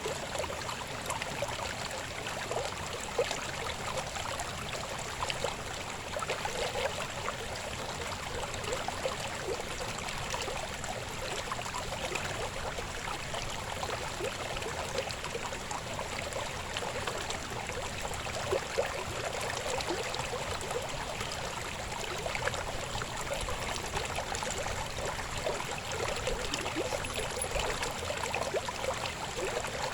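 Shallow river babbling: a steady splashing rush of water over stones, with many small gurgles and splashes.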